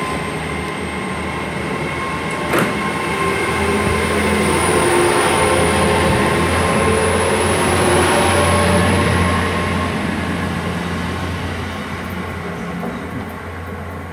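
Great Western Railway Class 800 bi-mode train pulling out under its underfloor diesel engines: a steady engine drone with a thin high whine over it and a single sharp clank about two and a half seconds in. It grows louder to a peak around the middle and then fades as the train draws away.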